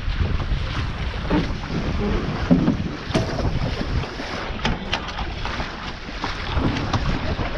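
Wind buffeting the microphone over water rushing past the hulls of a Taipan 5.7 catamaran under sail, with a few short knocks about three to five seconds in.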